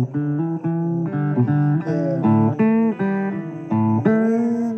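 Blues guitar playing a run of single notes, some of them bent upward, in an instrumental break of a blues song.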